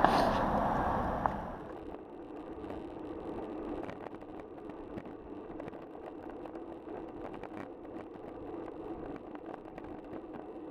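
A motor vehicle passes close by and fades away within the first couple of seconds. Then the steady rolling noise of a road bicycle on tarmac follows, tyre and wind noise with faint light ticks.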